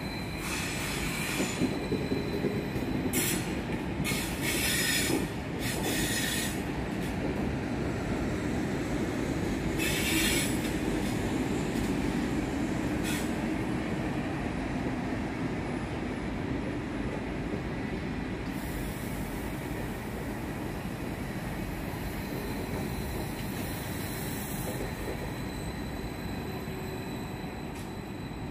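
Vy Class 74 (Stadler FLIRT) electric multiple unit pulling out over the station tracks: a steady rail rumble with several short, high wheel squeals in the first ten seconds or so, the rumble slowly fading as it draws away.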